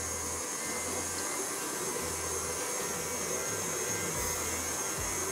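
KitchenAid Artisan stand mixer running, its flat beater creaming butter and brown sugar in the stainless steel bowl. A steady motor whir with a thin high whine.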